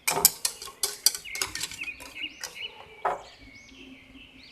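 A metal spoon clinking against a bowl several times while stirring annatto seeds in hot water, with a couple more clinks near the middle. Faint bird calls chirp in the background through the second half.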